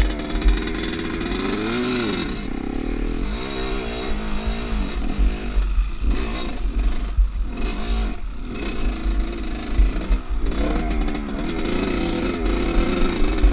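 Off-road motorcycle engine revving up and falling back over and over as it is ridden over rough ground, with wind rumbling on the microphone.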